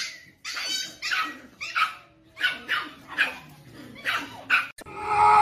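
Dogs barking in a string of short, high yips, about two a second. Near the end the sound cuts abruptly to a loud, steady, held sound.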